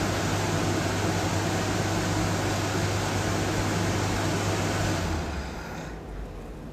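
Steady machine noise: an even rush with a low hum, like a fan or air conditioner running, that cuts off about five seconds in.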